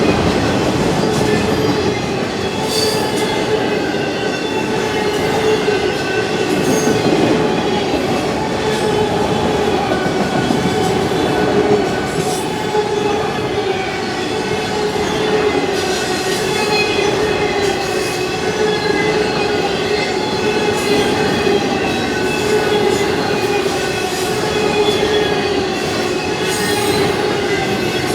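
Freight train cars rolling past steadily, with a held squeal from the wheels over the rumble and occasional clacks.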